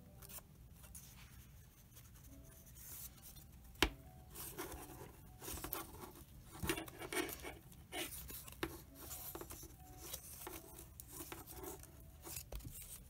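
Hands handling a wooden embroidery hoop on cross-stitch cloth: faint, scratchy rustling and rubbing of the fabric and hoop in short irregular bursts, with one sharp tap about four seconds in.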